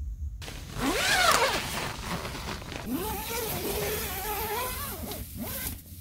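A tent door zipper being pulled in two long strokes, its rasp rising and wavering in pitch as the pull speeds up and slows.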